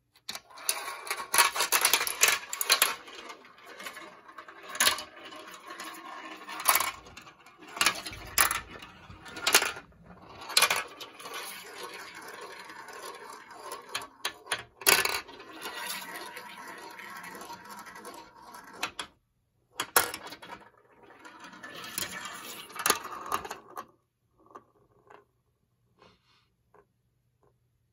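A metal marble rolling through a plastic marble run: a continuous rolling rattle broken by sharp clacks as it drops from piece to piece and circles the bowls. It stops about 24 seconds in, followed by a few faint ticks.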